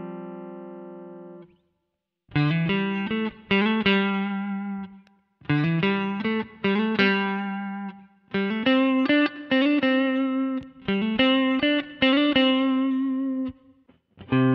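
Clean electric guitar, a Fender American Standard Stratocaster on its neck pickup, played through an amp-simulator pedal. A held chord fades out, and after a short silence come three phrases of rhythmic picked chords with brief pauses between them.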